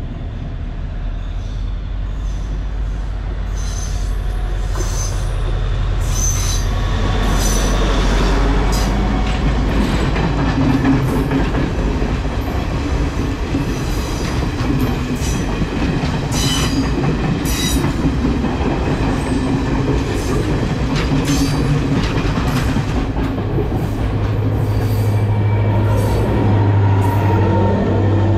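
Diesel passenger train passing close by: a steady engine drone with the wheels clattering and squealing on the rails, growing louder over the first several seconds as the train draws near.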